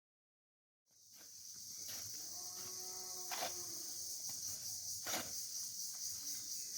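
Steady high-pitched chorus of insects, likely crickets or cicadas, starting about a second in, with a few sharp clicks and a faint brief animal call midway.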